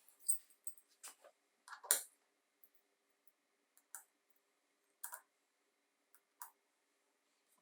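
Sparse, irregular small clicks and taps of hard parts being handled, about seven in all, with the loudest near the start and about two seconds in.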